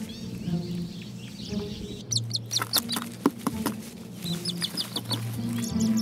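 Red-billed hornbills calling in runs of short, high clucking notes, starting about two seconds in and again past four seconds, with a few sharp taps in between, over background music.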